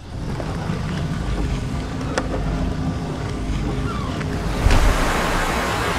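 Logo-intro sound design: a steady surf-like rushing noise over a low sustained tone. A sharp click comes about two seconds in and a louder hit just before five seconds.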